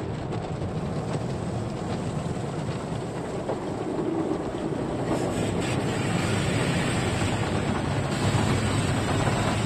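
Automatic car wash spraying and washing the car, heard from inside the cabin as a steady rushing of water on the windshield and body, growing a little louder about four seconds in.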